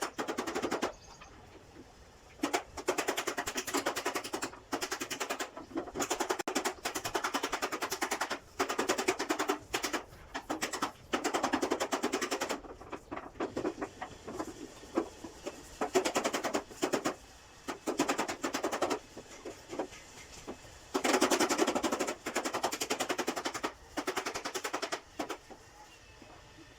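A power tool working on a door panel in repeated on-off bursts of rapid clattering strokes, each burst lasting from half a second to about two seconds.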